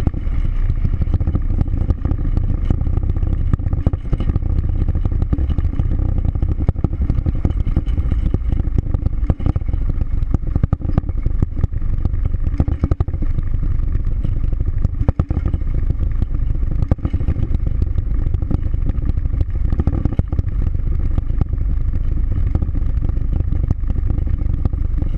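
Vehicle cruising at steady highway speed: a heavy low rumble of road and wind noise, a steady drone from the engine and drivetrain, and frequent light rattles and clicks.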